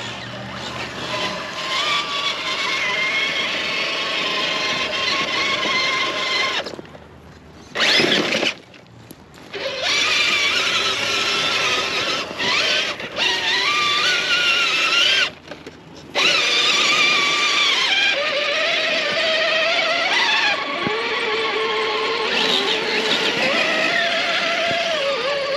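Electric drive motors of RC rock crawlers whining, the pitch wavering and gliding with the throttle. The whine cuts out abruptly a few times as the throttle is let off, then picks up again.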